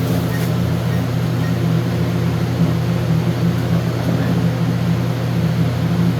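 Steady low mechanical hum of machinery running, unchanging throughout.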